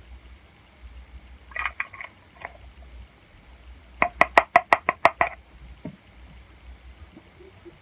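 A metal tablespoon clinking against a container while baking soda and honey are measured in, then tapped rapidly on the rim about nine times in quick succession, each tap ringing briefly.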